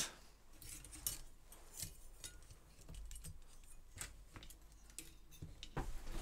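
Faint, scattered clicks and taps of small circuit-board parts, metal brackets and cable connectors being handled: the iMac G3's CRT neck board being fitted back together.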